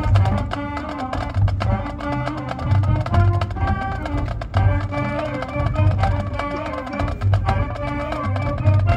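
High school marching band playing its field show: brass and wind melody with keyboard percussion over a steady beat of low drums and sharp percussion hits.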